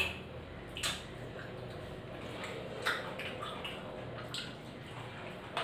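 Eating by hand at a table of steel plates and bowls: a few light clicks and wet smacks, irregularly spaced.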